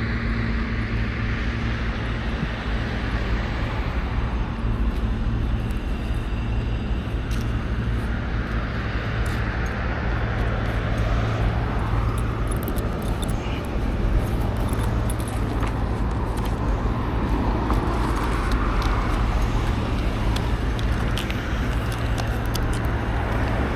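Steady road vehicle noise: a continuous rushing of traffic or car running sound with a low hum underneath, slowly swelling and easing.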